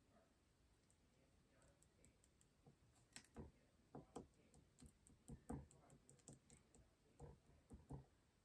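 Faint, irregular light clicks and taps of a small hand tool pressing a sticker down onto a small resin keychain piece, starting about three seconds in.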